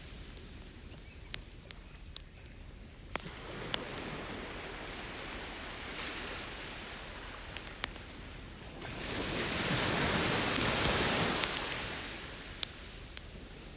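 Ocean waves washing up on a beach and drawing back, the loudest surge coming just past the middle. Over them a campfire crackles with scattered sharp pops.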